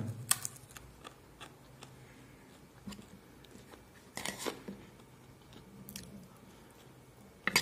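A person chewing crispy roast chicken and pasta, with a few short sharp clicks, one about four seconds in as a metal spoon works in the metal bowl.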